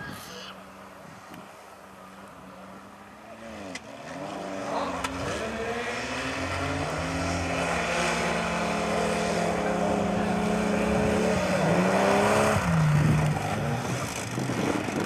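A mud drag racer's engine revving up about four seconds in, then running hard at high revs and growing louder. Its pitch drops sharply near the end as the throttle comes off.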